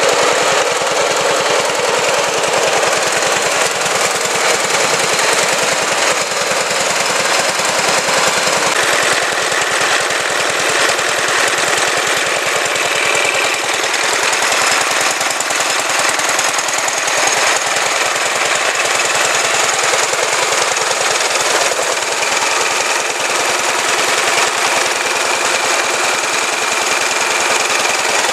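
1935 International LB single-cylinder engine running steadily, with a rapid, even knocking beat.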